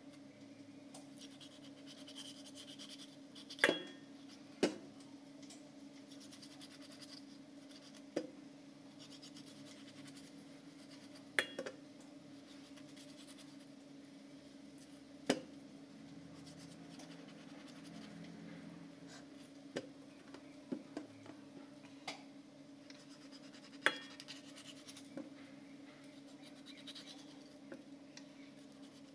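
Knife cutting silver pomfret into pieces on a stainless steel plate: soft scraping with about ten sharp clinks as the blade or fish knocks the steel, some ringing briefly. A steady low hum runs underneath.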